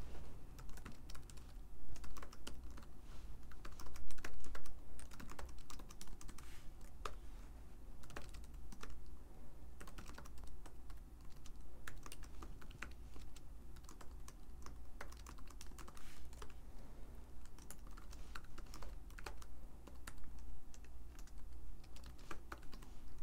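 Typing on a computer keyboard: a fast, irregular run of key clicks with short pauses, over a low steady hum.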